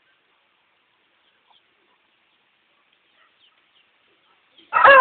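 A rooster crowing loudly, the cock-a-doodle-doo starting just before the end, after a long near-quiet stretch with only faint scattered high chirps.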